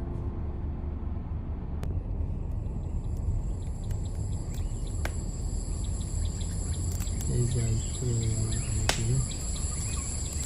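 Outdoor ambience: a steady low rumble like wind on the microphone, with a steady high-pitched ringing that starts about two seconds in and a few sharp clicks. A voice speaks briefly a bit past the middle.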